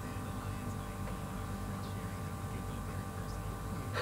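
A low, steady hum made of several constant tones, with faint speech barely audible underneath.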